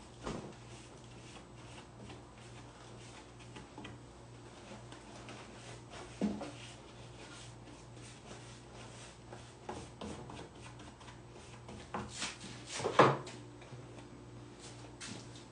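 Hands rubbing and smoothing decoupage tissue paper onto a tabletop, faint rustling with a few sharp knocks, the loudest about 13 seconds in, over a steady low hum.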